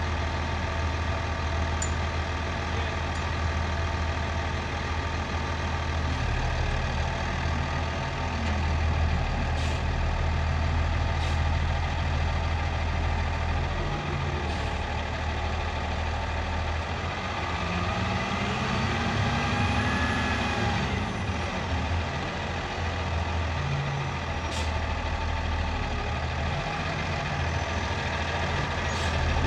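Diesel engine of a bale-squeeze loading machine running steadily, its revs rising and falling a few times, most markedly in the middle, as it works the squeeze loading hay bales. A few faint clicks or knocks come in between.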